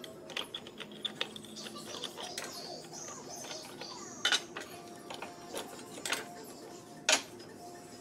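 Metal parts of an old chain hoist clinking and scraping as its cast cover is pried off with a screwdriver and the gears are handled. There are scattered light clicks and two sharper metal knocks, one about four seconds in and the loudest near the end.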